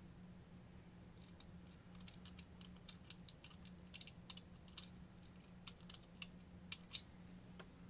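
Scattered light clicks and taps of small rotary-tool parts being handled while its motor carbon brushes are taken out and compared. There is a faint steady hum underneath.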